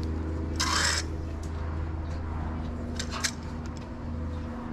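T-shirts being handled and sorted: a loud rustling swish of fabric about half a second in, and a shorter rustle with a sharp click around three seconds in, over a steady low hum.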